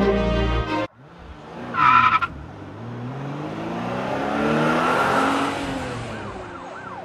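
A car sound effect: a brief tire screech about two seconds in, then a car's engine whine rising and falling away, over the footage of a car tumbling down a slope.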